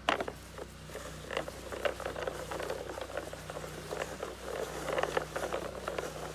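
Plastic toy lawn mower being pushed across a lawn, its wheels and parts giving an irregular patter of small clicks and rattles, with a sharper click right at the start.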